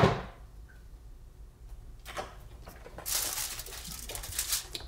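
Crinkling and rustling of aluminium foil for about two seconds, starting about three seconds in, between sharp knocks of something being handled and set down on the table, the loudest at the start and at the end.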